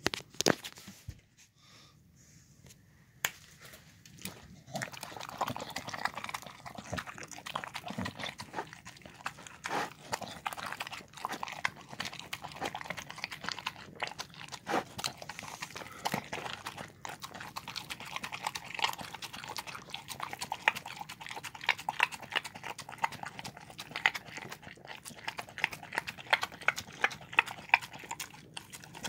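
Dog eating soft food of chicken, rice and lentils from a bowl: wet smacking, licking and chewing clicks, several a second, starting about four seconds in and growing sharper near the end. A sharp knock sounds at the very start.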